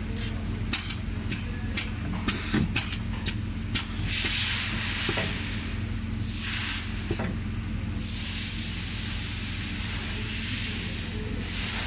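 Pneumatic assembly machine running: a quick run of sharp mechanical clicks in the first few seconds, then repeated hissing bursts like compressed air venting, over a steady machine hum and a constant high whine.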